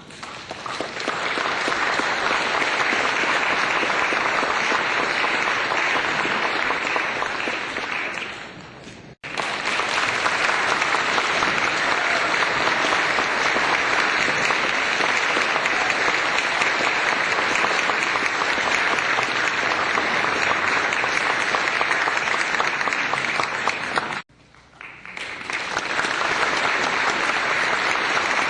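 Applause from a crowd of people clapping, in three separate recordings one after another. The first swells in and dies away about nine seconds in, the second cuts off suddenly near the end, and a third builds up just after it.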